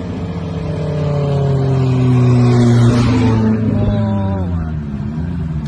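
Car engine running, its pitch sinking slowly as it grows louder over the first half, then easing off, with a shorter rise and fall in engine note near the end.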